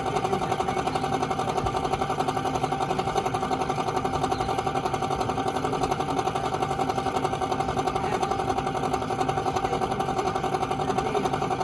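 1.5-ton Fujitsu air conditioner running with a bad fan motor: a steady hum with a rapid, even pulsing rattle.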